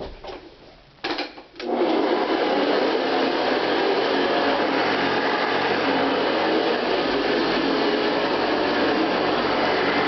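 Mid-1960s Hoover Convertible 589 upright vacuum cleaner switched on after a few clicks, its motor starting suddenly about one and a half seconds in and then running steadily.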